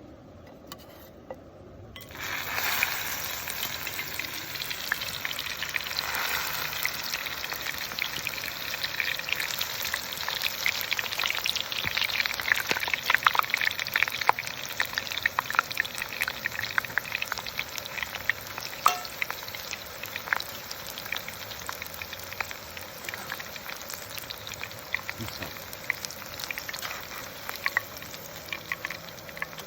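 Food sizzling in a hot skillet, starting suddenly about two seconds in as a steady hiss with scattered crackles and pops, loudest about halfway through.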